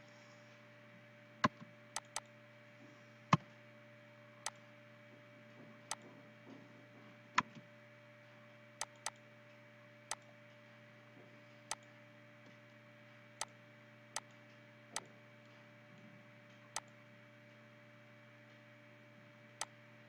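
Computer mouse button clicks at irregular intervals, mostly single and sometimes in quick pairs, over a faint steady hum.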